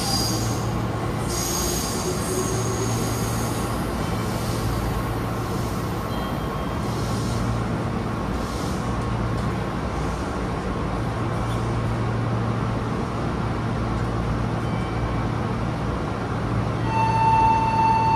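Meitetsu electric train standing at a station platform, its equipment giving a steady low hum over platform background noise. Near the end a steady high electronic tone starts and holds.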